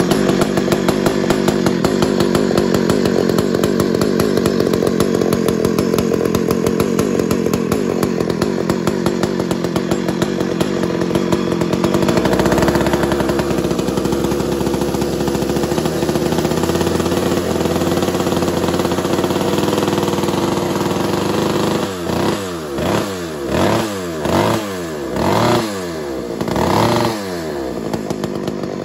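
Pioneer P61 chainsaw's two-stroke engine running on the bench while its carburettor is tuned. The note shifts about twelve seconds in, and near the end the throttle is blipped about five times, the revs rising and falling with each.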